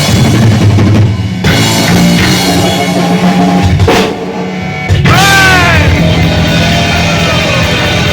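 Live heavy metal band playing loud: a drum kit with bass drum under sustained distorted guitar. About five seconds in, notes start bending up and down in pitch.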